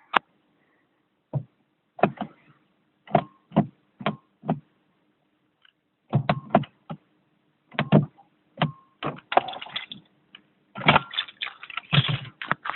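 A run of irregular short clicks and knocks over a faint steady hum, sparse at first and coming thick and fast over the last couple of seconds.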